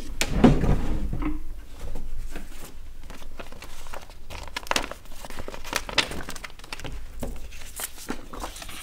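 Sheets of paper rustling and crinkling as they are picked up and handled, in a string of short, irregular rustles.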